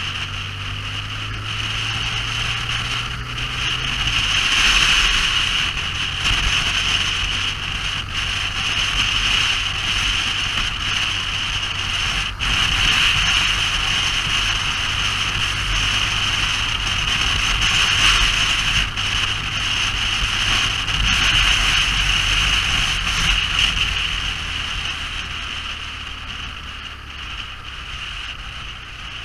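Motorcycle riding at a steady speed: a steady engine hum under loud rushing wind noise. An engine note drops about four seconds in, and the sound fades somewhat near the end.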